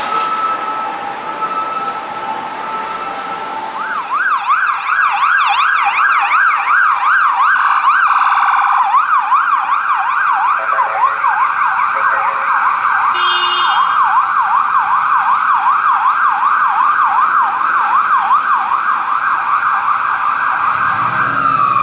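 Emergency sirens. For the first few seconds a police car's siren alternates between a high and a low tone. Then an ambulance siren runs in a fast yelp, sweeping up and down several times a second, with a short horn blast about 13 seconds in. Near the end the siren drops away in a falling tone.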